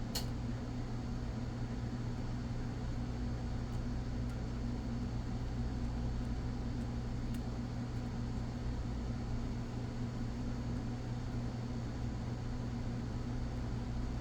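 Steady low mechanical hum, like a fan or small motor running, with a single sharp click right at the start and a few faint ticks.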